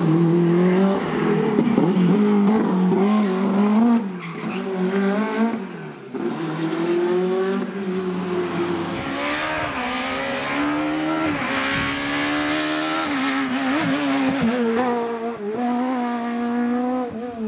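Rally car engine running hard, its pitch rising and falling again and again with throttle and gear changes, with a brief lift about six seconds in.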